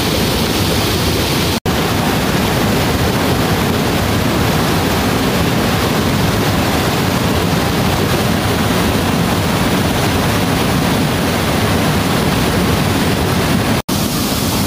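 Loud, steady rushing of a fast rocky mountain stream tumbling over boulders in small white-water cascades, broken by two brief silent gaps, about a second and a half in and near the end.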